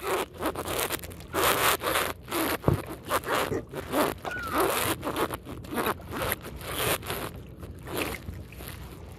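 Repeated short rasping scrapes and rubs, irregular, one to three a second, as a spearfishing line is hauled up by hand against the side of a wooden boat. There is a short squeak about four seconds in.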